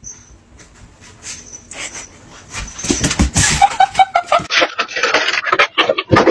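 A dog gives a quick run of short high whining notes, followed by a series of sharp knocks and scuffles.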